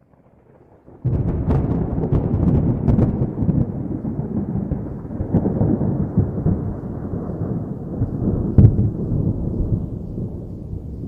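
A thunderclap: a sudden loud crack about a second in, then a long rolling rumble with a few sharper cracks in it, slowly fading toward the end.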